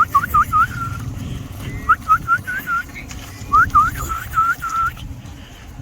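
A person whistling in quick runs of short, upward-hooked notes, three runs in all, urging cattle along on a drive.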